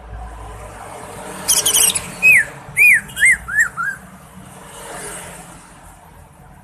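Cucak ijo (green leafbird) singing: a quick rattling chatter, then five loud down-slurred whistles, each shorter and lower than the one before.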